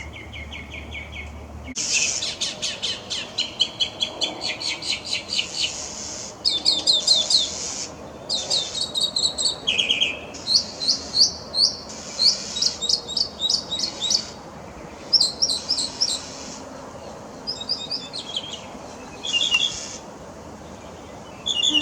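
Mockingbird singing: a long string of varied phrases, each a quick run of the same note or figure repeated several times, with short pauses between them.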